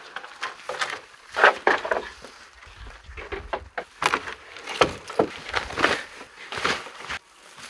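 Dry wooden poles knocking and clattering against each other as they are carried and laid down on the grass, a string of sharp wooden knocks with rustling in between.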